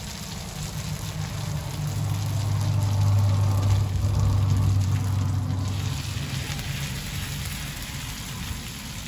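Hash browns, butter and oil sizzling in ring molds on a Blackstone flat-top griddle, a steady crackling hiss. A low rumble swells and fades in the middle.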